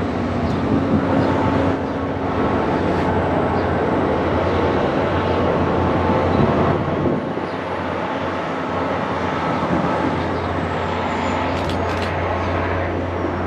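MBTA commuter train pulling into the station behind a GP40MC diesel locomotive, the engine running with a steady low drone under continuous rail and wheel noise.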